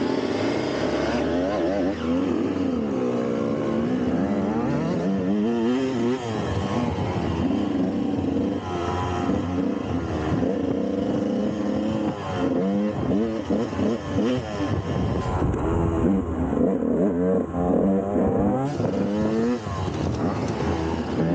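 Dirt bike engine running under way, its revs rising and falling over and over as the throttle is worked through the gears.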